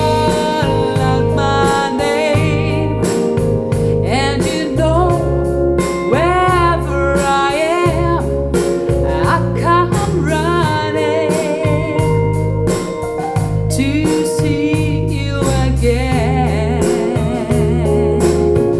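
A song played back through a JBL Studio 280 3-way floorstanding loudspeaker: a stretch without lyrics, with a steady pulsing bass line under a wavering melody with vibrato.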